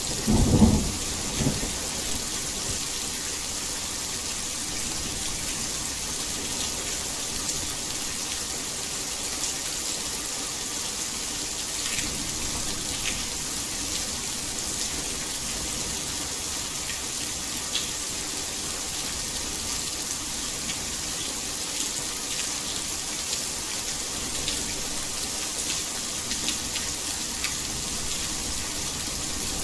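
Heavy rain falling steadily, an even hiss with scattered sharper drops. A rumble of thunder dies away in the first second or so.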